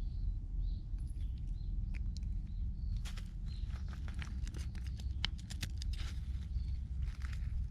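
Rustling with light, quick crackling clicks that grow busier about three seconds in, over a low steady rumble.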